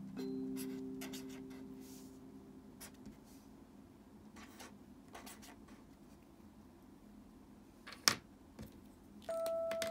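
Felt-tip pen strokes scratching on paper in short groups as letters are written, with a sharp click about eight seconds in.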